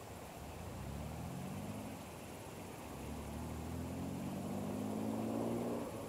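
A motor engine running, its pitch rising slowly twice and louder the second time.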